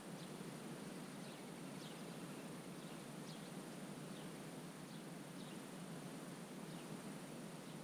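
Faint wetland ambience: a steady, soft background hiss with short, high chirps sweeping downward, repeated irregularly about once a second, from a small bird calling.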